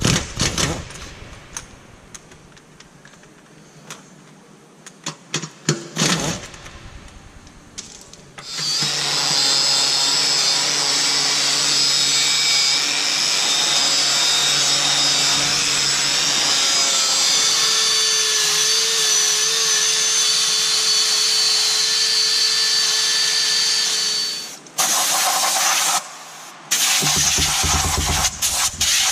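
A power tool runs steadily for about sixteen seconds with a constant whine, starting sharply about eight seconds in, then is run again in two short bursts near the end. Before it, a few knocks and clicks of parts being handled.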